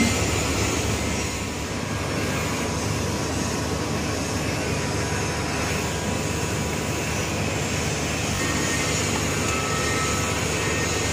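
Steady drone of running machinery: a low hum under an even rushing noise that holds level throughout.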